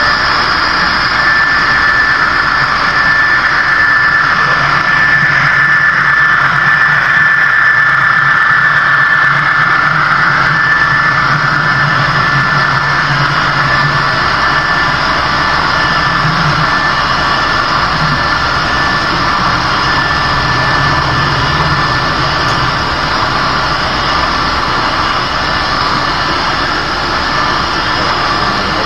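HO scale model trains running: a steady engine-like drone with a constant high tone over it, while a long train of hopper cars rolls past on the near track. A low hum swells through the middle and eases toward the end.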